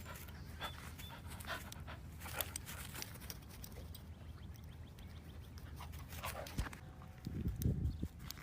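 A dog panting, faint against a steady low hum.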